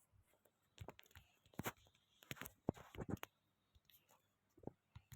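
Irregular faint clicks and knocks, scattered short taps with a few louder ones in the middle.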